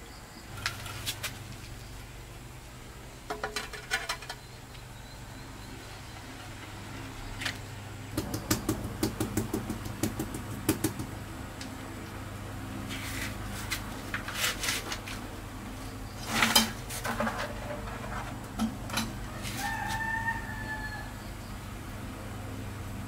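Rubber mallet knocking ceramic floor tiles down into a wet cement bed, in several bursts of quick taps with pauses between them. About 20 seconds in, a rooster crows once.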